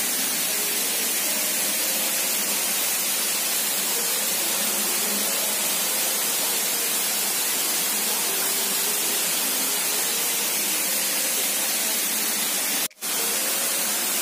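Waterfall: a steady rushing hiss of falling water, cutting out briefly for a moment near the end.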